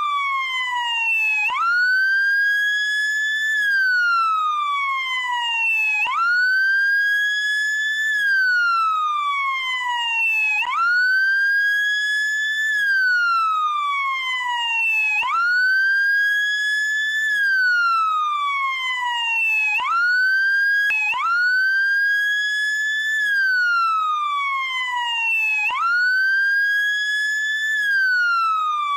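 Wail siren of a SAMU ambulance motorcycle (motolância), sweeping up quickly, holding briefly and sliding slowly down. The cycle repeats about every four and a half seconds.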